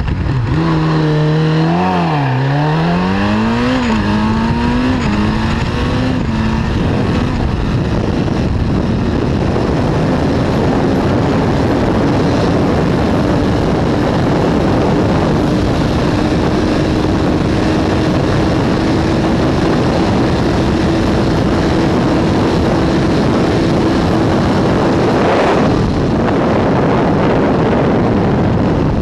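Motorcycle engine accelerating hard from a standing start, its pitch climbing and dropping back at each of several quick upshifts in the first few seconds. After that a dense rush of wind on the onboard microphone covers the engine, which runs on as a steady drone at very high speed.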